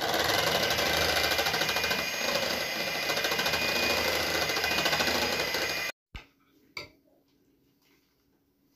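Electric hand mixer running steadily in a bowl for about six seconds, then cutting off suddenly. A single short click follows a moment later.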